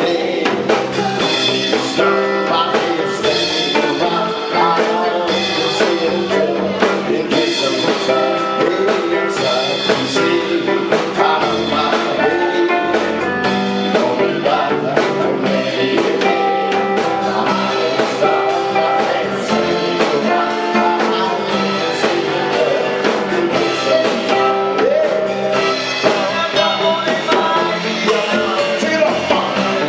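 Live band playing an African dance medley: electric guitar and drum kit with sung vocals.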